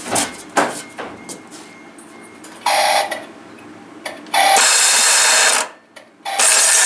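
Reduction-gear starter motor whirring in three short bursts, the second the longest, spinning without properly cranking the engine. Its drive is slipping off the flywheel ring gear, which the mechanics put down to the starter.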